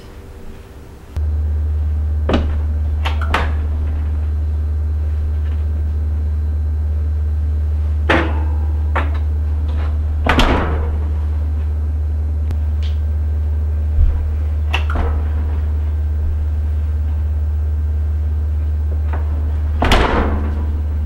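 Oven door opened and shut with clunks and knocks as a large plastic mixing bowl is set inside, over a loud, steady low hum that starts about a second in. The heaviest clunks come about halfway through and near the end.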